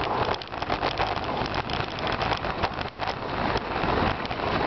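Steady wind rush over the microphone with a dense crackle from a racing bicycle's tyres and two dogs' paws on packed snow, as the dogs pull the bike at speed.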